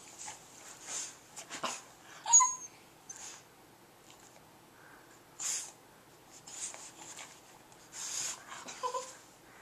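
Boston Terrier snuffling and huffing through its short nose in a run of brief airy bursts, with a short squeaky whine about two seconds in.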